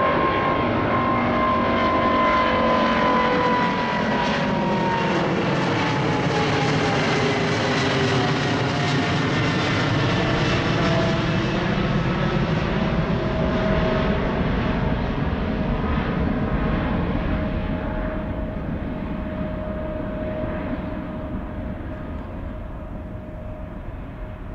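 Boeing 777-200ER's twin GE90 turbofans at climb power just after takeoff: steady jet engine noise with whining tones that slide down in pitch as the airliner passes and recedes, fading gradually over the last several seconds.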